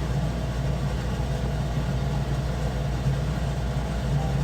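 A steady low rumbling hum with no clear events, constant throughout.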